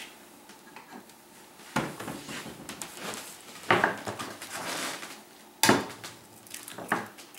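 Four sharp clinks and knocks, the loudest about three quarters of the way through, as a drinking glass is set on a countertop and an egg is cracked against its rim for an egg wash.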